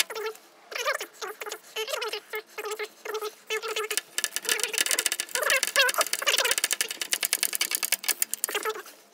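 Hand socket ratchet clicking as it is worked on the tandem pump bolts: short irregular runs of clicks at first, then a fast, even run of clicks from about four seconds in until near the end.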